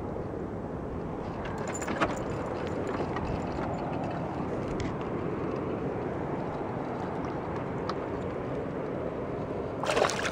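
Steady low background noise, a single knock about two seconds in, then near the end a hooked northern pike thrashing and splashing briefly at the water's surface as it is reeled in.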